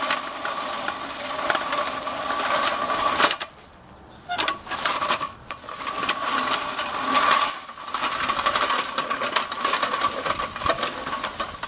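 Craftsman 18-inch push reel mower being pushed through grass: the spinning reel blades clatter with a fast clicking and a steady whine, stopping for about a second some three and a half seconds in. The reel is rusty and the blades need sharpening, yet it still cuts.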